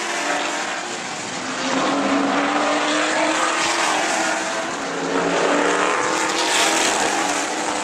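Several sportsman stock car engines running at racing speed, their pitch rising and falling as the cars go through the turns and straights.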